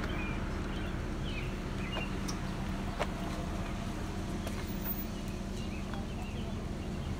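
Outdoor background sound: a steady low rumble with faint, short high chirps scattered through, and a single sharp click about three seconds in.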